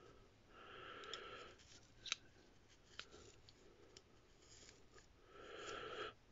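Faint scratchy rustling of brass wool being packed tightly into a brass pipe fitting with a screwdriver, in two spells about a second long, near the start and near the end, with a few light clicks between.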